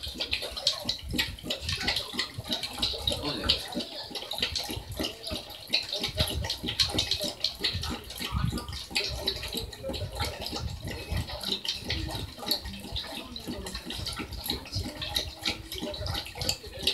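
A pet lapping water from a bowl, a steady run of quick wet laps and small splashes that keeps going without a break.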